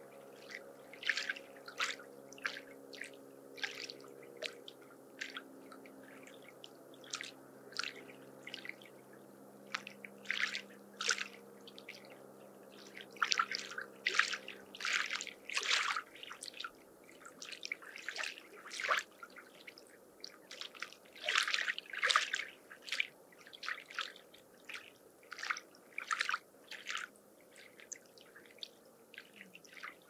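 Small lake waves lapping at the shore: irregular short splashes and trickles, one after another.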